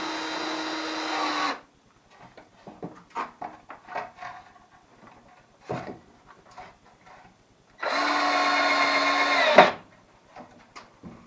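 Power drill running in two bursts of about two seconds each, at the start and about eight seconds in, at a steady pitch, driving screws into a wood block; light knocks and handling clicks between the runs.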